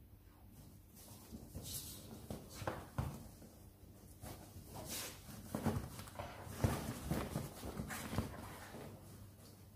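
Cocker spaniel puppy rooting and scrabbling in a plush fabric dog bed: irregular rustling, scratching and soft knocks, busier in the second half.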